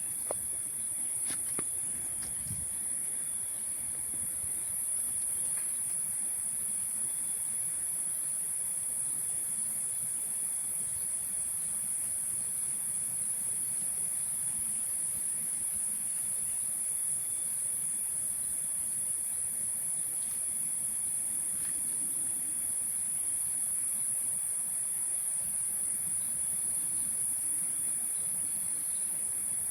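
Steady, unbroken high-pitched drone of a tropical forest insect chorus, with a fainter steady tone lower down and a few faint clicks in the first couple of seconds.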